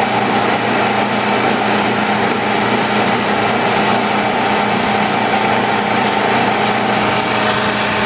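Rong Fu RF-19V drill press running steadily at a little over 2,000 RPM on its inverter-driven 1 HP motor: a constant machine hum and whine that holds its pitch.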